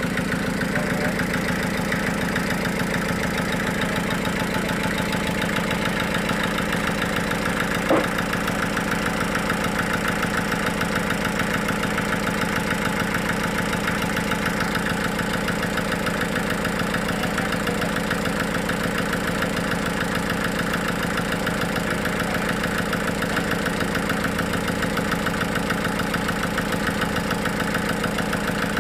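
Sawmill's engine running steadily at idle with a fast, even pulsing beat, and one sharp knock about eight seconds in.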